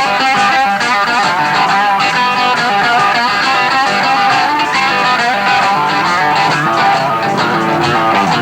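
Rock band playing a guitar-led instrumental passage, steady and loud with no singing.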